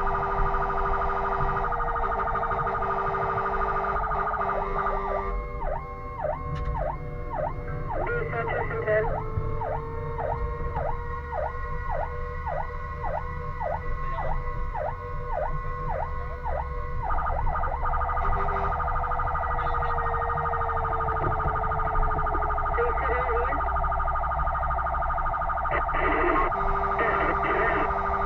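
Fire engine's emergency sirens sounding while it runs to a fire call, over engine and road noise. From about five seconds in until about seventeen seconds, a fast pulsing siren pattern of nearly two pulses a second joins the steady siren tone, over a slow rise and fall of a lower siren pitch. After that the steady tone carries on alone.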